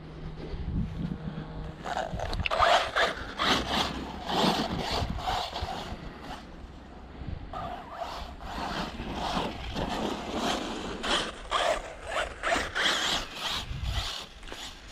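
Footsteps swishing through long grass, about one step every half second.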